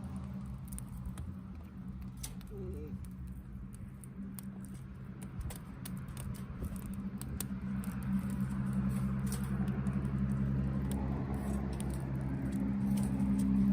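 Wood campfire crackling, with scattered sharp pops and snaps. A steady low hum runs underneath and grows louder over the second half.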